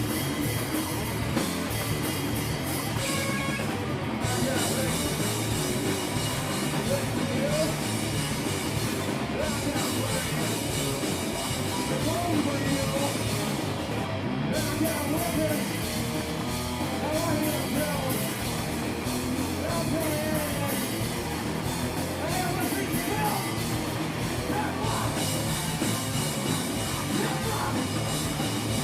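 Live rock band playing loud, with a drum kit and distorted electric guitar driving steadily. A shouted, punk-style vocal comes in over the band several seconds in.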